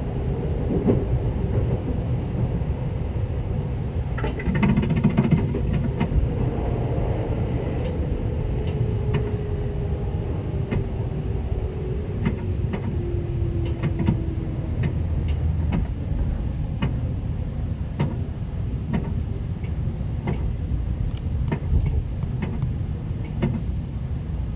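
Interior running sound of a Seibu 10000 series electric train, heard in the car above the line breaker: a steady rumble of wheels on rail with irregular sharp clacks. There is a brief clattery patch about four to six seconds in, and a motor whine that slowly falls in pitch over the following several seconds.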